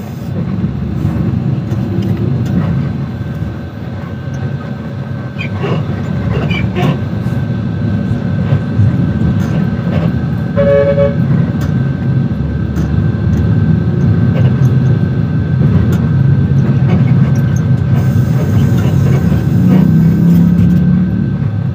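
Steady low engine and road rumble heard from inside a moving bus in city traffic, with a short vehicle horn honk about eleven seconds in.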